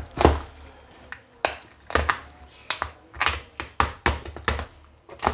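Clear plastic stretch wrap around a cardboard box crinkling and crackling as hands grip and pull at it, in about a dozen sharp, irregular crackles.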